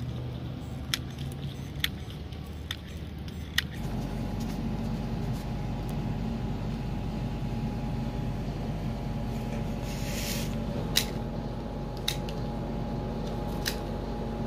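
A few sharp clicks and a short scrape over a steady hum, from a utility knife trimming bougainvillea stem cuttings. The background changes about four seconds in, when the hum begins.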